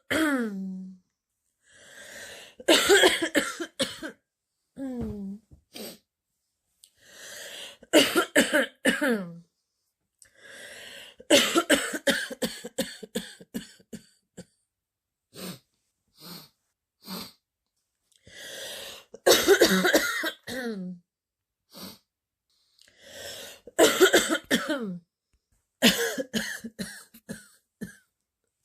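A girl with a heavy chest cold coughing deep, barking coughs in fit after fit of several coughs each, many ending in a falling voiced tone. A drawn breath comes before each fit. It is the cough of a stuffy, wheezy cold.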